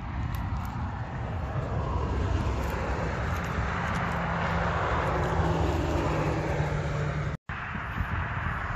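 A road vehicle passing: its engine and tyre noise swells over a few seconds, peaks about midway and fades, over a low rumble of wind on the microphone. The sound cuts out for an instant near the end.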